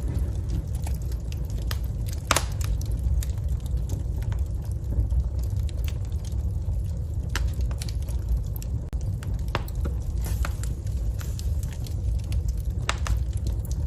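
Wood fire burning in a fireplace: a steady low rumble of flames with irregular sharp crackles and pops, the loudest pop about two seconds in.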